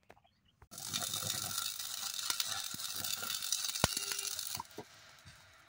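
Stick arc welding on the worn end of a diesel engine balancer weight: the arc crackles and sizzles steadily, starting under a second in and stopping about four and a half seconds in.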